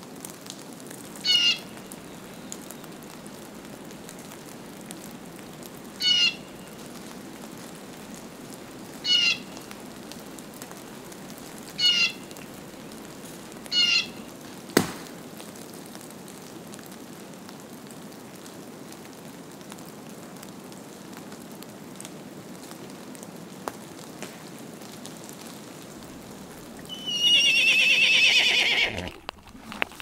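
A bird gives five short, high calls a few seconds apart over a steady background hiss, with one sharp click midway. Near the end a horse whinnies loudly for about two seconds, a wavering call.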